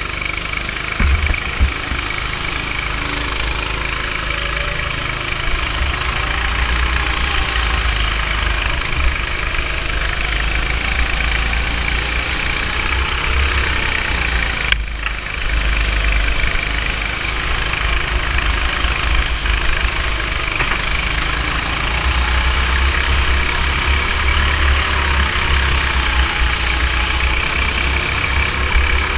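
Go-kart engine running under load, its pitch rising and falling as the driver accelerates and slows through the corners, over a heavy low rumble. There is one sharp knock about halfway through.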